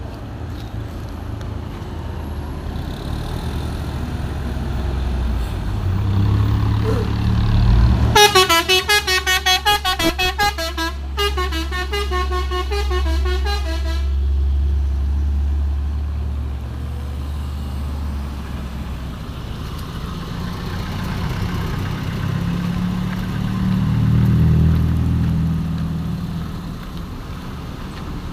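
Hino 500 truck's diesel engine running, with a telolet basuri multi-tone air horn playing a fast, pulsing melody for about six seconds, starting about eight seconds in. The engine noise swells again toward the end.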